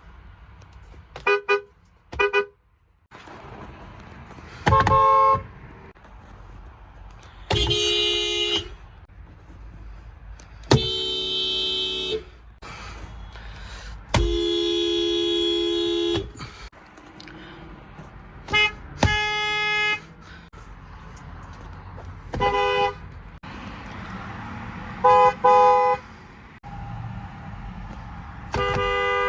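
One car horn after another, each a different car: short single and double taps, with a few horns held for one to two seconds, about a dozen honks in all, each with its own pitch.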